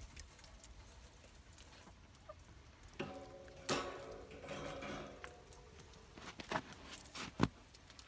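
A chicken's low, drawn-out clucking call, with a few sharp taps and crunches.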